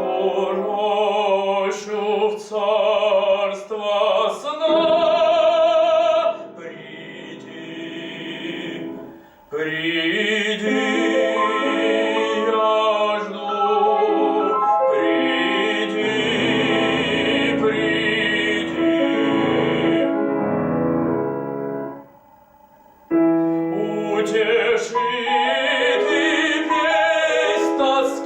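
Operatic-style classical singing by a solo voice with vibrato, accompanied by piano, with a short pause about two-thirds of the way through.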